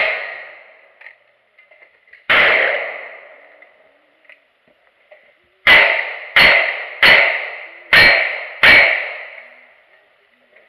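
A single gunshot about two seconds in, then five shots from a single-action revolver in quick succession, about two a second, each followed by a steel target ringing.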